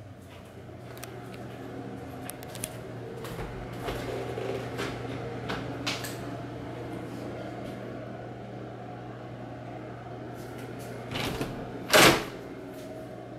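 Quiet room sound with a steady low hum and scattered small clicks and knocks. Near the end comes one loud knock as a closet door is opened on a top-loading washing machine.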